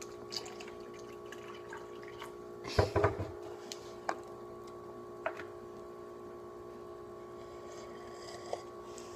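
Cold water being poured into a pot of just-boiled water, with a short splash about three seconds in and a few small clicks and drips, over a steady background hum.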